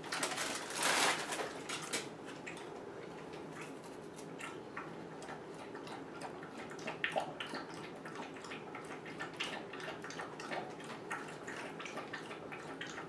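Bullmastiff puppy lapping water from a stainless steel bowl: a steady run of quick wet clicks and splashes, louder for about a second near the start.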